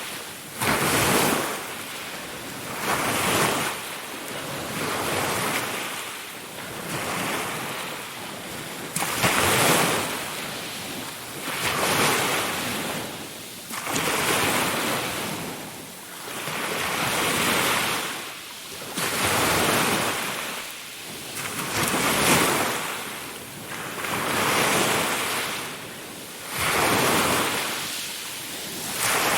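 Ocean surf: waves breaking and washing in a steady rhythm, each rush swelling and falling away about every two seconds.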